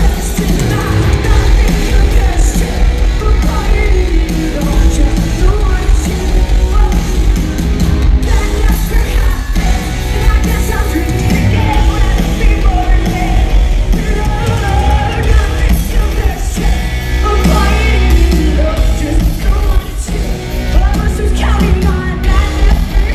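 Live rock band playing loud with distorted guitars, heavy bass and drums, and a woman singing over it, heard through an arena's boomy sound system and recorded from the crowd.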